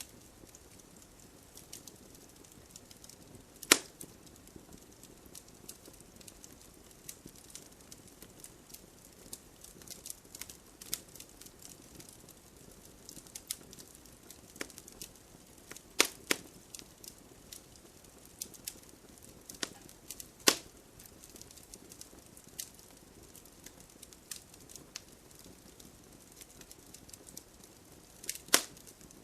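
Campfire logs burning and crackling: irregular small ticks and pops over a faint hiss, with a handful of sharp, loud pops spread through.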